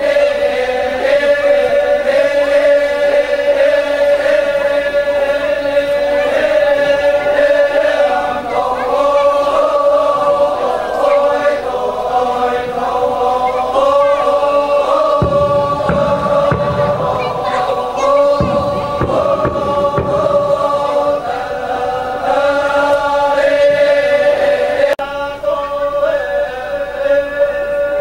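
A group of voices chanting together, a slow chant held on one steady note with shifting higher lines above it. A low rumble breaks in from about 15 to 20 seconds in.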